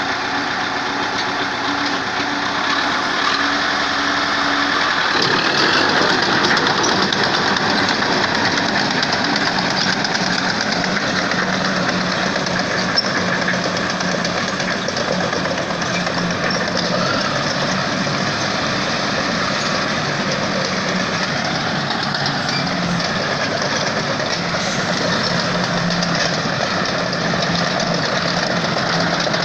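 A TDT-55 skidder's diesel engine running steadily, with a change in its note about five seconds in.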